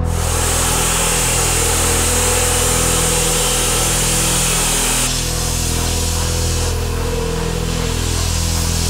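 DeWalt abrasive chop saw cutting steel, a steady high grinding hiss, changing about five seconds in as the cutting gives way to further metal grinding. A low steady drone runs underneath.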